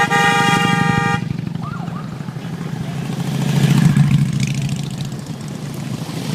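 A vehicle horn held on one steady note, cutting off about a second in. Then the engine of a passing road vehicle, getting louder toward the middle and fading again.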